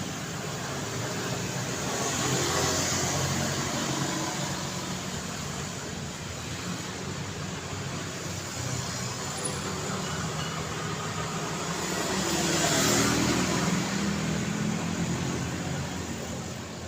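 City street traffic at night: steady road noise with vehicles passing, swelling as one goes by about two seconds in and again, louder, near the end.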